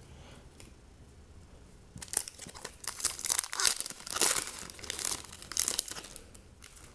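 Foil wrapper of a trading card pack being torn open and crinkled in the hands, a run of crackling bursts starting about two seconds in and dying away near the end.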